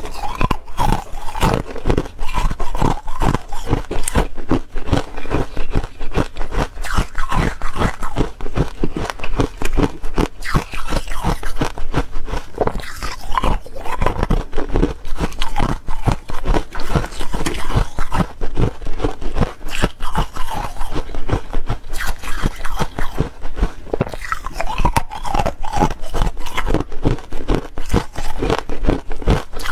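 A person biting and chewing small granular 'buckwheat' ice close to the microphone: a rapid, continuous run of crisp crunches.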